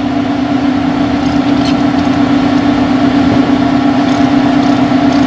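A machine running with a steady, loud hum at one constant pitch, over a rough noise.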